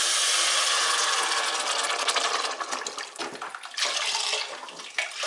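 Chicken broth pouring from a carton into a soup pot of sautéed onions and garlic: a steady splashing stream that turns into uneven glugs and splashes after about two and a half seconds.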